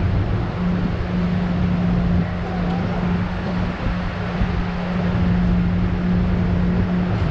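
A steady low hum over a continuous noisy din.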